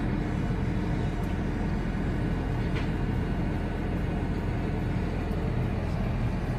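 Tractor diesel engine running steadily, heard from inside the cab as a low, even drone.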